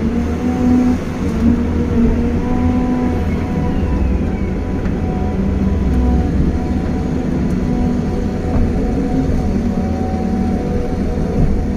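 Caterpillar 320 hydraulic excavator running, heard from inside the cab: a steady diesel engine drone with a hydraulic whine whose pitch shifts a little as the arm and bucket move.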